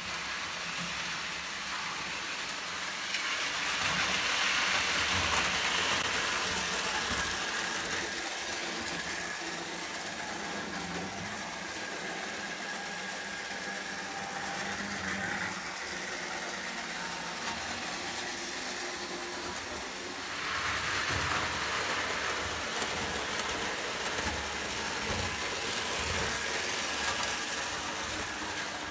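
Lionel O gauge toy trains running on three-rail tinplate track: a steady rumble and whir of motors and wheels. It swells louder about three seconds in and again around twenty seconds.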